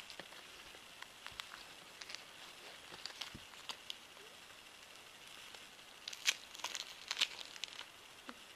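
Faint, scattered clicks and crackles of someone eating sweets, with a denser run of crackling about six seconds in.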